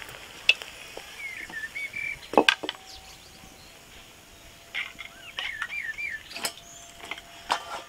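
Metal spatula clinking a few times against a steel wok and bowl as fried moghlai parathas are lifted out of the oil, the loudest clink about two and a half seconds in. Birds chirp in two short spells in the background.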